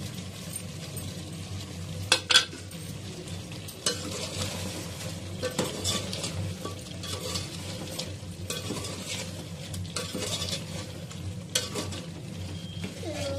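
A spoon stirring chicken korma in an aluminium pot, scraping through the thick curry as it fries and sizzles, with sharp knocks of the spoon against the pot; the loudest knocks come about two seconds in. A steady low hum runs underneath.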